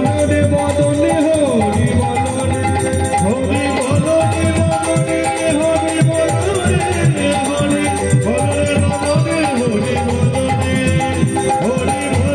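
Bengali kirtan music: khol drums beat out a fast rhythm whose strokes bend in pitch, over a sustained keyboard melody and a haze of high percussion.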